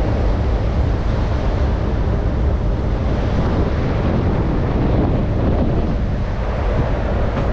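Strong wind blowing across the microphone: a steady, loud rushing noise with a heavy low rumble.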